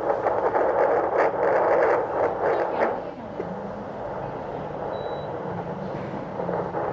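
Handheld fetal Doppler whooshing with the fetal heartbeat through its speaker for about three seconds, then quieter. A short high beep about five seconds in.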